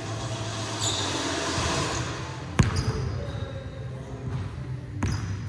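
A basketball bouncing on a hardwood gym floor: one sharp, loud bounce about two and a half seconds in and a weaker one near the end, each ringing out in the echo of a large hall.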